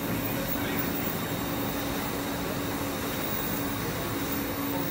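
Steady drone of a circuit-board production line's machines on the factory floor, with a faint steady hum.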